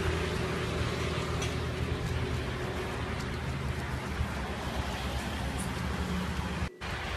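Steady outdoor background noise, a low rumble with hiss. It cuts out for a split second near the end.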